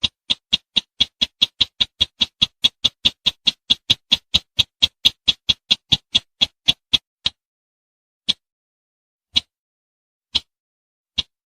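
Recorded call of the sintar semak (bush sintar), a bird used as a hunting lure: a fast run of short, sharp, high ticking notes, about five a second, which stops about seven seconds in and gives way to single notes about a second apart.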